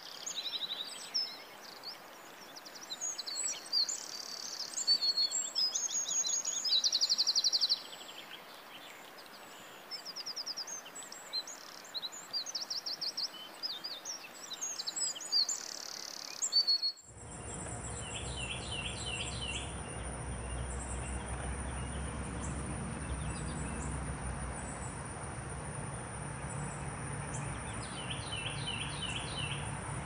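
Tropical forest ambience: many birds calling, with quick chirps and rapid trills, over a steady hiss. About seventeen seconds in it cuts to a different bed with a steady high insect drone, a low rumble and short runs of quick chirps.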